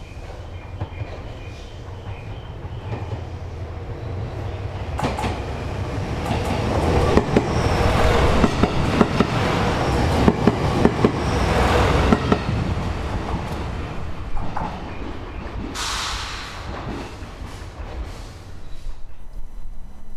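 JR East GV-E400 series diesel-electric train passing. Its rumble and the clatter of wheels over rail joints swell to a peak midway, then fade, with a brief high hiss near the end.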